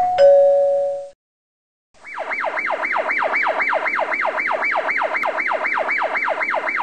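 A short two-note electronic chime with a click, then after about a second's pause a siren-style yelp whose pitch sweeps rapidly up and down about four times a second at a steady level.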